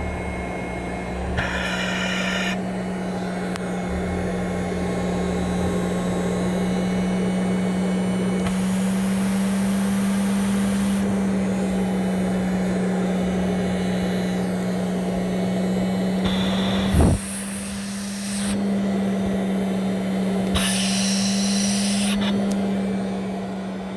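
Respironics CA-3000 Cough Assist's blower running with a steady hum, broken four times by a second or two of rushing air hiss. There is a brief loud thump about seventeen seconds in.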